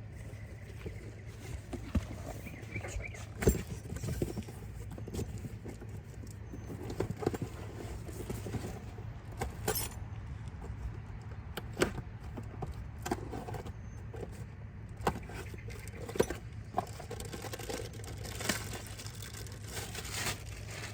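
Scattered metallic clinks and knocks of a brake rotor and tools being handled during a rear brake job, a few of them louder, over a steady low hum.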